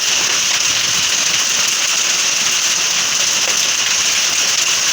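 Hailstorm: hail and heavy rain pelting down in a steady, dense, loud hiss with no let-up.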